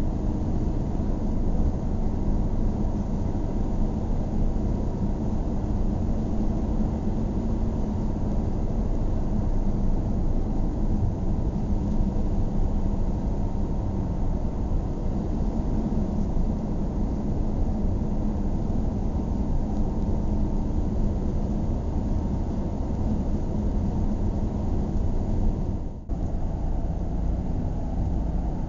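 Steady car driving noise heard from inside the cabin: a low engine and tyre rumble on the road that barely changes. The sound cuts out for a split second near the end.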